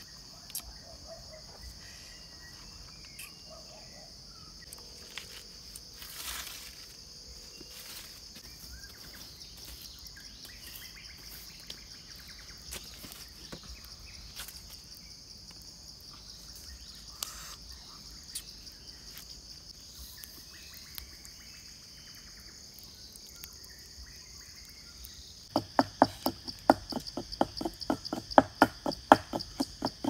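Insects buzzing in a steady, high-pitched drone. Near the end a rapid run of sharp knocks starts and becomes the loudest sound.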